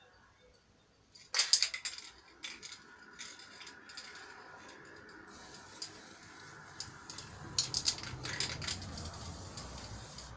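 Clattering and rattling of paint cans and tools handled while a floor lamp is painted, with a burst of rattling about a second and a half in and another around eight seconds, over a faint steady hiss.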